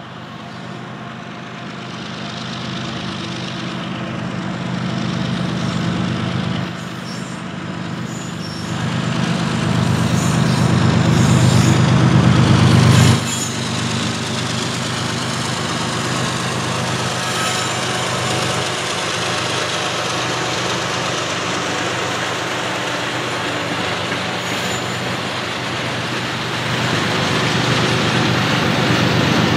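A CSX GE ES44-series diesel-electric locomotive working a freight train, its engine growing steadily louder as it approaches and dropping away sharply about thirteen seconds in as it passes. After that comes the steady rolling noise of freight and tank cars going by.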